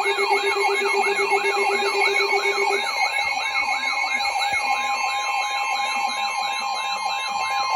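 Electronic alert siren sweeping down in pitch a little over three times a second, layered with a higher warbling tone. A low steady tone drops out about three seconds in. About five seconds in, a steady alarm tone near 1 kHz joins, the kind of attention tone that heralds a new weather-radio warning.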